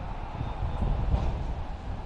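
Gusty wind buffeting the microphone: an uneven low rumble that swells and fades.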